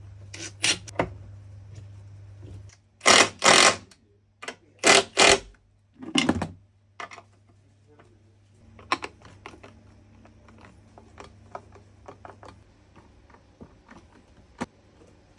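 Cordless drill/driver run in short bursts against a ski while mounting bindings: about five quick whirs in the first six and a half seconds, two of them back to back. After that, scattered light clicks and taps of hand tools and binding parts.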